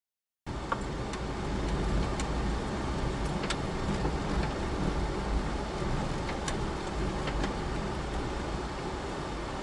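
Car driving slowly along a gravel track, heard from inside the cabin: a steady low engine and road rumble with scattered small clicks of stones under the tyres, starting abruptly about half a second in.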